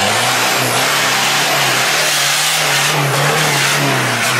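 Engine of a modified Toyota off-road pickup revving hard and held at high revs as the truck works through a dirt course section, with a dense rush of noise from the driveline and tyres over it.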